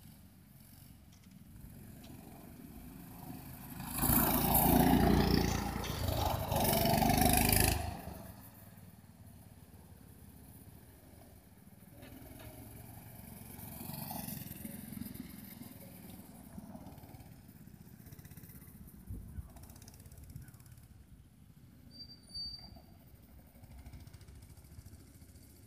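Go-kart engine running as the kart laps the track. It is loudest for about four seconds, a few seconds in, as it passes close, with a weaker rise and fall later in the lap.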